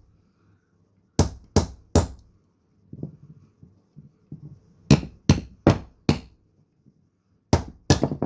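Hard, sharp strikes on the back of a knife blade, driving it into a log to split off kindling: three quick blows, a pause with faint knocks, four more in a row, then two more near the end.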